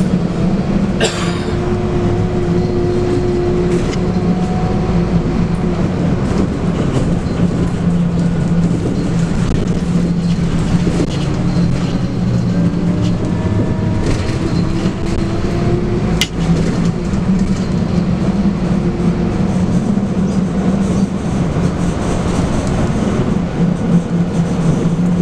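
Scania K280UB bus's 9.3-litre five-cylinder DC9 diesel running under way, heard from inside the cabin, its note slowly rising and falling as the bus drives. A sharp click sounds once about 16 seconds in.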